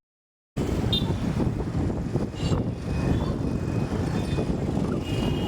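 Road traffic noise heard from a moving vehicle: a steady low rumble of engine and tyre noise that starts abruptly about half a second in. A few faint, brief high tones sound over it.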